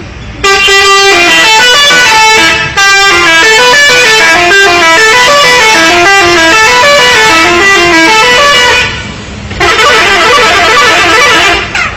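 Indonesian 'telolet' musical bus horn, very loud, playing a fast tune of stepping notes for about eight seconds, then after a short pause playing again briefly.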